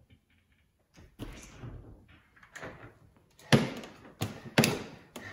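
A door opening, with a series of knocks and thumps that grow louder, the loudest about three and a half seconds in.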